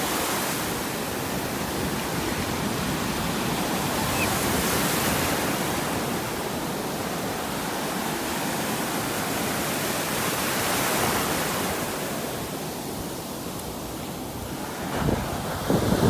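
Ocean surf breaking and washing in around the shallows: a steady rush of white water that swells and eases a couple of times and grows louder and rougher near the end.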